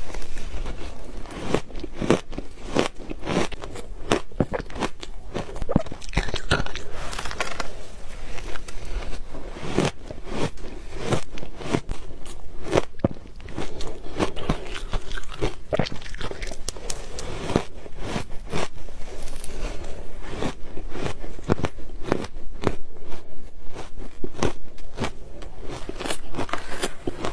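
Ice being bitten and chewed close to the microphone: a rapid, irregular run of sharp crunches and cracks.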